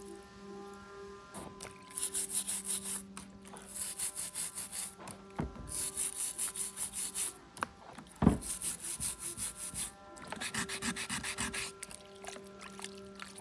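Stiff brush scrubbing a wet, soapy electric motor stator in quick back-and-forth strokes, in several runs of about four to five strokes a second. A single sharp knock about eight seconds in.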